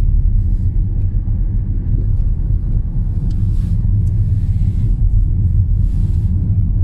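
Car driving along a worn asphalt road: the steady low rumble of engine and tyres.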